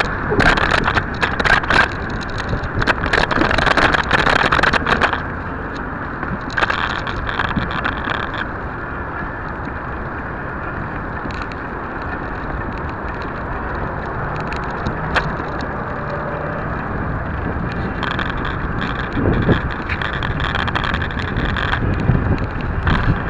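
Steady rumble of wind and road noise from a moving vehicle, picked up by a small spy camera's microphone. Bursts of rattling clicks and knocks come in the first few seconds and again near the end, with a smoother, even stretch between.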